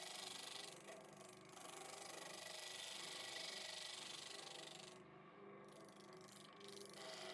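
A small power saw running with a fast, even rattle as it cuts a curve in timber, easing off briefly twice.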